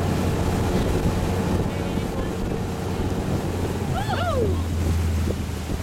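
Tow boat's engine running steadily under the rush of its churning wake, with wind buffeting the microphone. About four seconds in, a short call glides up and then down in pitch.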